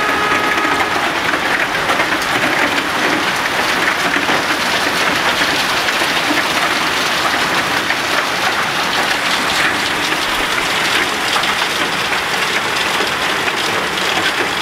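Hailstorm: hail and heavy rain pelting the ground and parked cars, a steady dense patter of countless small impacts. A faint steady tone fades out about a second in.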